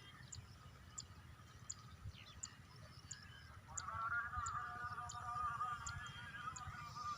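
Outdoor ambience: a short high chirp repeating about every two-thirds of a second, joined about halfway through by a longer wavering call lasting a few seconds, over a low wind rumble.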